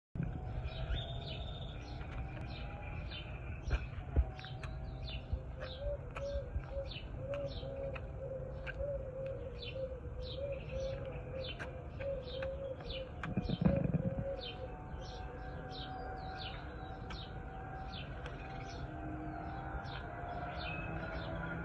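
Small birds chirping over and over with quick, high, downward-slurred chirps, over a steady low background hum. A faint wavering wail runs through the middle, with a short low rumble near the end of it.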